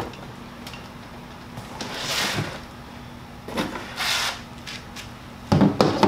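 Cardboard box rustling and scraping twice as a window air conditioner is lifted out of it, then a few loud knocks near the end as the heavy unit is set down on a folding table.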